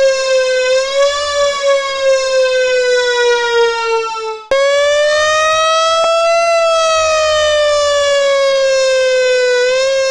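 Fire truck siren wailing on one high, steady tone that swells and sags slightly in pitch. A long, slowly falling wail cuts off abruptly about four and a half seconds in, and a second long wail starts at once, rising a little and then easing down.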